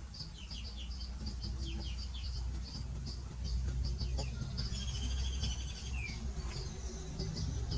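Outdoor background of many rapid high-pitched animal chirps, with a denser trill about five seconds in, over a steady low rumble.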